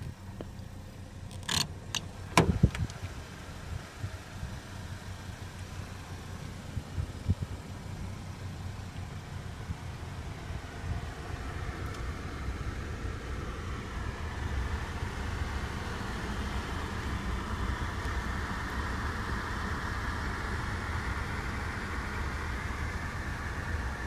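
A car door is opened, with sharp clicks and a thud about two seconds in. After that comes a steady low rumble inside the cabin of a 2017 Chevrolet Traverse, and a fan-like hiss builds from about fourteen seconds in.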